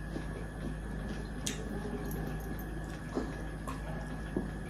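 Faint eating and drinking noises at a table, a few short clicks and small mouth sounds, over a steady background hum.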